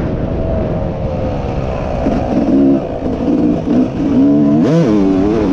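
Dirt bike engine under the rider on a motocross track. It pulls steadily, then the throttle is blipped on and off several times in the middle, and it revs up sharply near the end.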